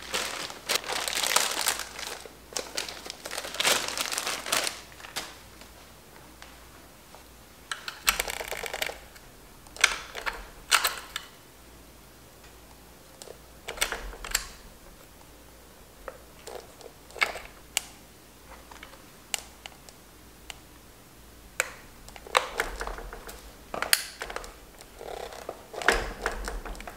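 Handling noises as a rubber fork boot is worked by hand onto a motorcycle front fork tube: irregular bursts of crinkling and rustling with small clicks, in several spells separated by quiet pauses.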